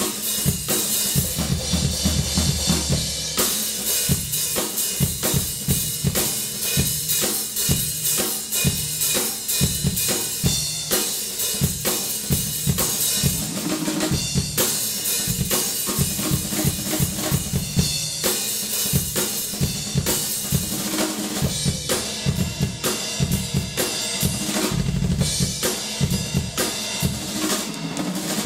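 Drum kit played continuously: rapid strikes on the bass drum and snare, with cymbals ringing over them.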